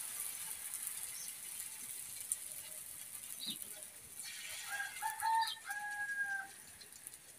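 A rooster crowing once, a broken-then-held call of about two seconds in the second half, over a faint steady hiss.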